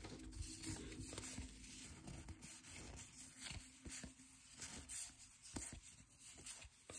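Faint, soft ticks and slides of trading cards being thumbed through by hand, one after another.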